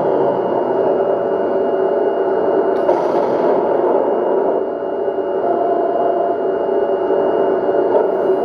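An RC model tank's electronic sound unit playing a steady, droning engine effect through its small onboard speaker, with a click about three seconds in and another near the end.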